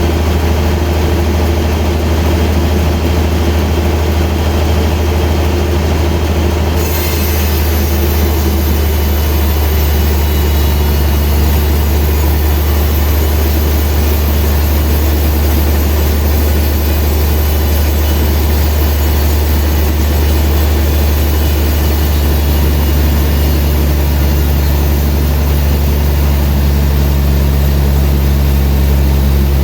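Sawmill machinery running steadily, with a loud low hum. About seven seconds in, a higher hiss joins it and lasts to the end.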